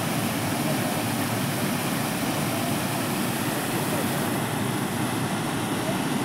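Floodwater from an overflowing stream rushing steadily over a submerged road: a continuous, even rush of water.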